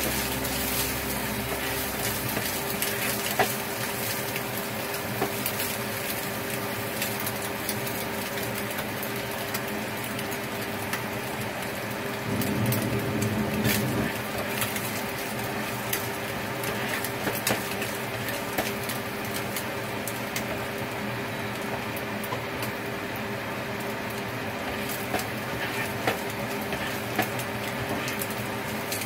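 Rice frying in a pan: a steady sizzle with occasional light clicks and scrapes of a utensil against the pan, over a steady low hum.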